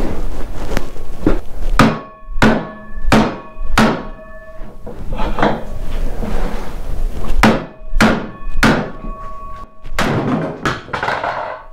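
A hammer striking metal parts of a snowmobile's drive, a series of hard blows in two runs. Each blow is followed by a brief metallic ring as he knocks a part off its shaft.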